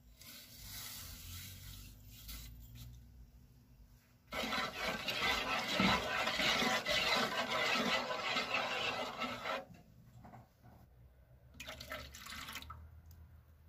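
Sugar poured into a pot of starch and water with a light hiss. Then a wooden spoon stirs the liquid briskly in the pot for about five seconds, swishing loudly. Near the end comes a short splash of orange juice being poured in.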